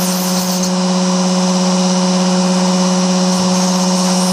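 Small hand-held electric drill running steadily at about three-quarters speed, a 0.4 mm carbide PCB drill bit spinning in its chuck as it is brought up to the tip of a brass dome nut: a steady motor hum with a whine. A brief higher hiss comes in during the first second.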